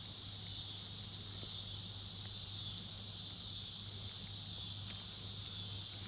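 Steady chorus of insects shrilling without a break, a dense high-pitched sound.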